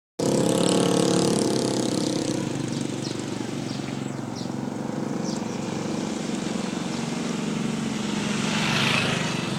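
A large bus's diesel engine running, louder for the first two seconds and then steady, with a brief rushing hiss swelling and fading near the end.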